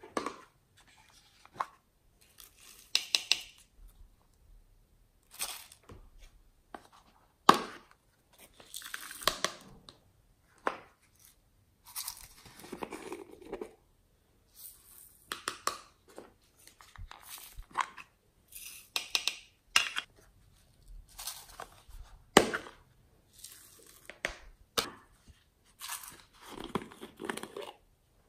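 Small plastic cups of sequins and glitter being handled and shaken out: irregular rustling, rattling bursts broken by sharp plastic clicks and taps, the loudest clicks about seven seconds in and again near twenty-two seconds.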